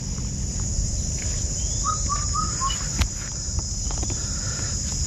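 Steady high-pitched insect chorus over a low rumble, with a bird giving four quick chirps about two seconds in and a single sharp knock about a second later.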